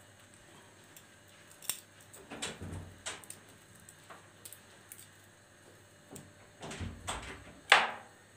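A small kitchen knife clicking and tapping on a plastic cutting board as garlic cloves are peeled and trimmed by hand: scattered short taps, the sharpest one near the end.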